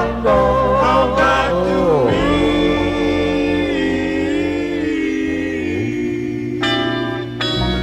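A doo-wop vocal group singing without words: a lead voice slides between notes, then the group holds a long harmony chord. A bell-like tone comes in near the end.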